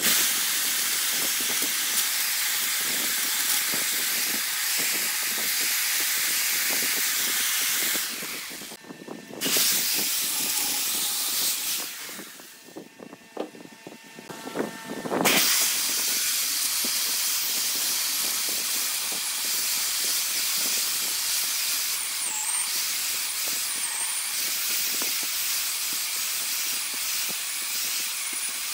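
Turning tool cutting into a large wooden blank spinning on a wood lathe: a steady hiss of shavings coming off the wood. It breaks off briefly about eight seconds in and again for about three seconds from twelve seconds in, then runs on steadily.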